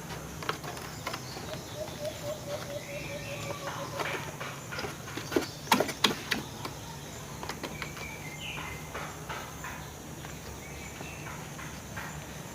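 Birds calling, including a quick run of short repeated notes, over a steady low hum, with scattered clicks and a few sharper knocks about halfway through.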